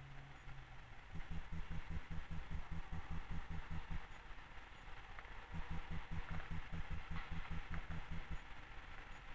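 Low pulsing rumble of street noise that comes and goes, with a Tatra tram approaching out of an underpass on its rails and a few light clicks toward the end.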